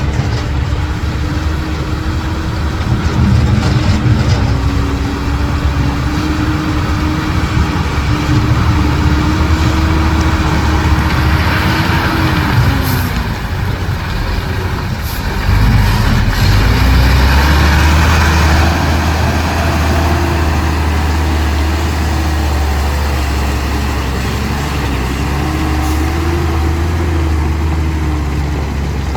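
Heavy diesel engines of earthmoving machinery running under load. The engine note dips and climbs back a little before halfway, and a deeper, louder low rumble comes in just past halfway.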